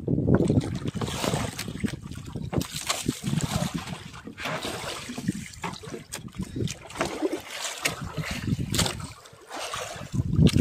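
Sea water sloshing and splashing around a small fishing boat, with irregular knocks and wind on the microphone.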